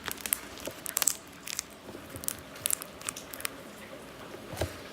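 Homemade slime being squeezed and stretched in the hands, giving irregular sharp clicks and pops.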